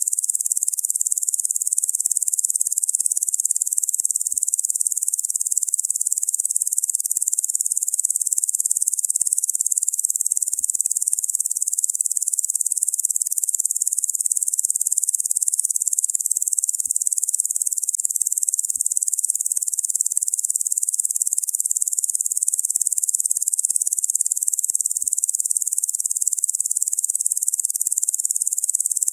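Locusts buzzing in one continuous, even high-pitched drone with no breaks or pulses.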